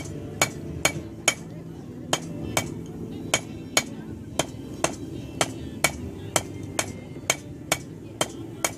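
Blacksmith's hammer striking hot steel on an anvil in a steady rhythm, about two blows a second, each with a short metallic ring. The blows land with the toe of the hammer, drawing the bar out into a taper.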